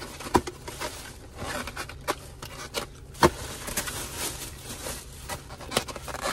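A person chewing hot fried chicken gizzards, with wet mouth clicks, crunches and breaths as they cool the hot food, and two sharper clicks about half a second and three seconds in, over a low steady hum inside a car.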